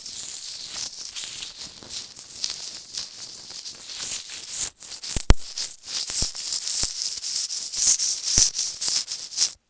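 Hair being rubbed against a microphone: a continuous scratchy, rustling hiss full of fine crackles that stops abruptly near the end.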